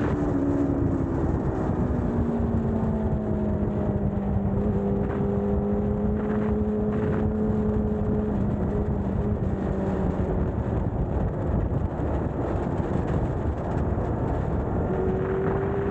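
BMW S1000RR inline-four motorcycle engine with an SC-Project exhaust running at steady revs while riding, its note easing down just after the start, holding, then climbing again near the end, over a heavy low rumbling noise.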